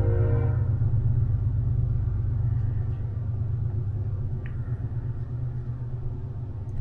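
Steady low hum with a rumble, easing slightly in level toward the end.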